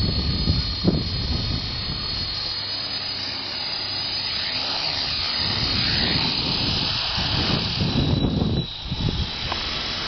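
Blade CP Pro electric RC helicopter running, its motor and rotor blades giving a steady high whine that shifts in pitch a few seconds in. Wind buffets the microphone with a gusty low rumble.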